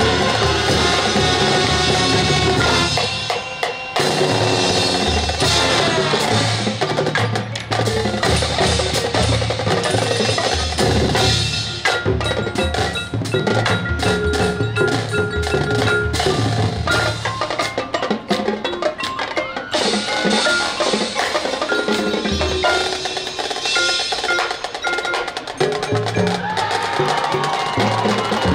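Marching band playing its field show. Held band chords in the first few seconds give way to a percussion-led passage: mallet keyboards such as marimba and glockenspiel play a repeated high figure over drum hits.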